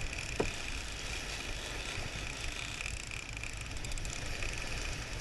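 Steady rumble and rush of a sportfishing boat running through the sea, with wind on the microphone and the steady whir of a big-game lever-drag reel being cranked against a hooked tuna. A brief short chirp about half a second in.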